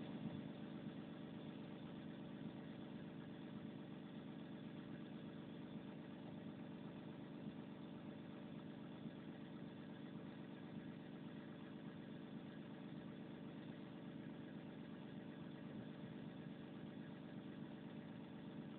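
Faint, steady idle of a heavy machine's engine, an even hum with no change in speed.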